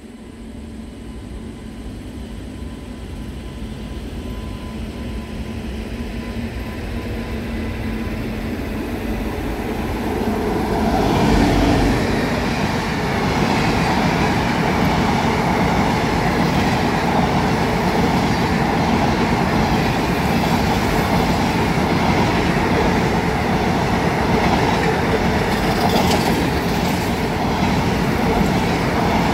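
An electric-hauled Indian Railways express, ICF coaches, passing close at speed. It grows steadily louder for about ten seconds as it approaches, then becomes a steady, loud rush and rumble of wheels on rail as the coaches go by, with a few sharp clicks near the end.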